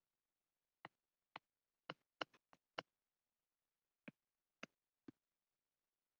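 About ten faint, sharp clicks at irregular intervals, several bunched close together around two seconds in.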